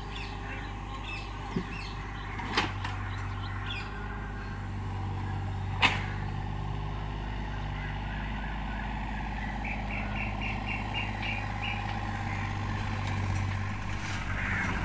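Hitachi ZX33U mini excavator's diesel engine running steadily as the machine travels on its tracks, with two sharp knocks, the first between two and three seconds in and the second near six seconds. Small birds chirp over it, including a quick run of about eight chirps around ten seconds in.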